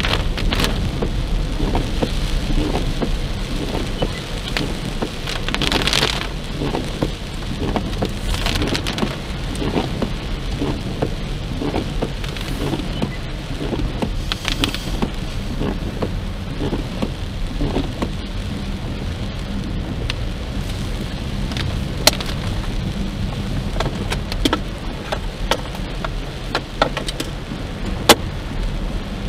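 Heavy rain on a moving car's windshield and roof, heard from inside the car: a steady rush of rain with many sharp drop hits, two louder ones near the end.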